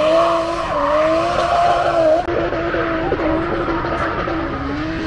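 Drift car's engine running at sustained revs, its note wavering and dipping briefly a few times with the throttle, over the hiss and squeal of tyres sliding on tarmac. The sound drops a little after about two seconds.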